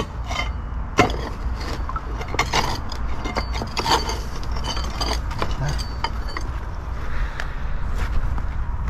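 Chunks of broken concrete and gravel clinking, knocking and scraping as they are lifted and moved by hand, with irregular knocks, the sharpest about a second in, over a steady low rumble.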